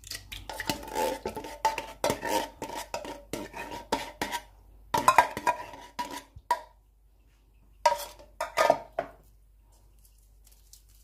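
Coconut milk poured into a nonstick frying pan, with repeated clinks and knocks of the container against the pan. The clatter comes in three bunches and stops about nine seconds in.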